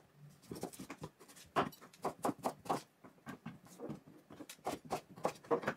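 Knife chopping vegetables on a cutting board: a run of light, irregular taps, about three a second.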